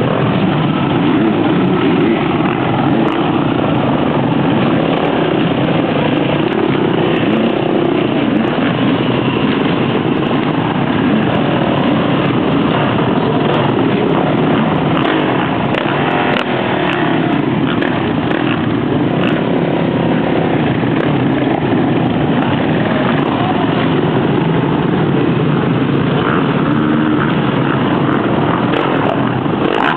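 Many motocross bike engines running together, a loud, steady din with single engines revving up and down as the bikes pass close by.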